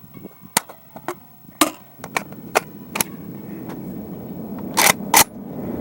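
About eight sharp clicks and knocks at uneven intervals, two close together near the end, over a steady low rush that builds from about two seconds in.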